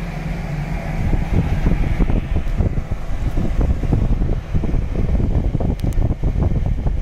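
Portable HEPA air filtration unit's fan running, its outlet airflow rushing and buffeting the microphone held over the outlet duct; the rush grows louder about a second in.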